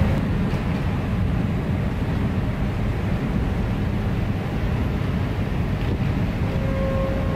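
Steady low rumble of a coastal-class ferry's engines and hull, heard on its lower vehicle deck. Near the end a steady hydraulic whine comes in: the rudder actuators making course corrections in rough water.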